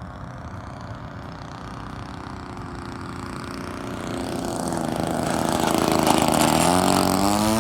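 Model airplane engine of a Big Stick .60 RC plane running in flight, growing steadily louder as the plane comes closer, its pitch dropping near the end as it passes.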